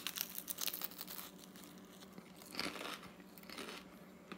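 Crunchy bite into a crisp deep-fried spring roll: a burst of crackling in the first second or so, followed by quieter chewing.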